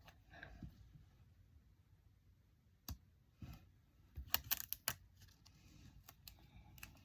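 Faint handling noises of paper and vinyl craft work: light rustling, one sharp click about three seconds in, then a quick run of clicks and taps a little after four seconds.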